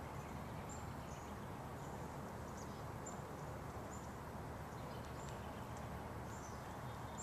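Outdoor ambience: a steady low background noise with short, high-pitched chirps from a small bird or insect repeating irregularly, roughly once or twice a second.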